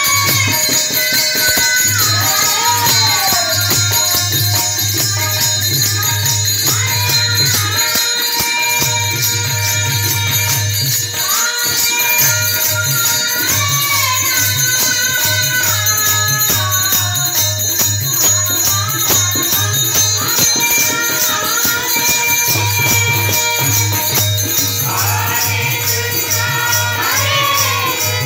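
Devotional song: a boy singing a melody over a harmonium's held notes, with small hand cymbals jingling and a steady low beat, heard through a microphone and loudspeaker system.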